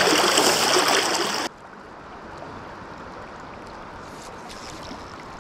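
Creek water rushing loudly and close for about a second and a half, then cutting off suddenly to a much quieter, steady flow of moving water.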